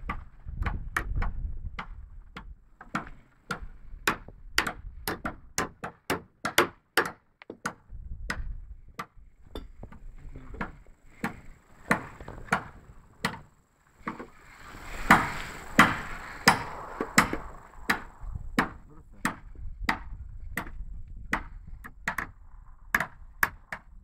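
Hammer blows on timber planks: sharp, irregular strikes, about one to two a second, loudest around the middle.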